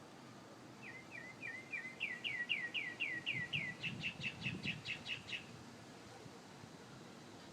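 A songbird singing one run of repeated notes. It begins about a second in with slurred notes falling in pitch, speeds up into clearer, louder notes, and ends with a faster string of sharp notes before stopping about five seconds in.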